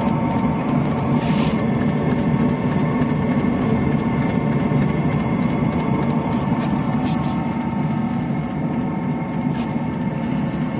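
Eberspacher diesel night heater running steadily through a genuine Webasto/Eberspacher exhaust silencer and a Chinese air intake silencer: an even, low combustion-and-blower noise with faint regular ticks running through it.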